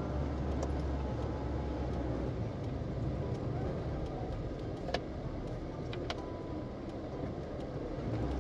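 A car driving along, its engine and road noise making a steady deep rumble that is heavier for the first two seconds, with a couple of sharp clicks a little past the middle.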